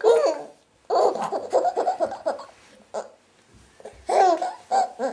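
A baby laughing in several bouts of quick, high-pitched chuckles with short pauses between them.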